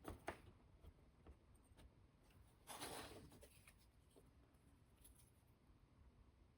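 Near silence with faint handwork at a model-building bench: a few light clicks and taps, and a brief soft scrape about three seconds in.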